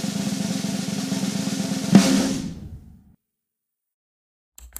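Intro music sting: a snare drum roll building to one loud hit about two seconds in, which rings out and fades within a second. A short click comes near the end.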